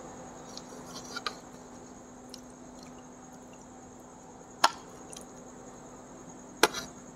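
Quiet eating sounds: faint chewing and handling of food over a steady low hum, with a few sharp clicks of dishes, the loudest about four and a half seconds in and another near the end.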